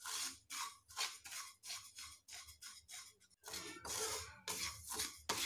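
A spatula scrapes and stirs black sesame seeds around a pan in quick strokes, about three a second. The seeds are being dry-roasted and are not yet fully toasted.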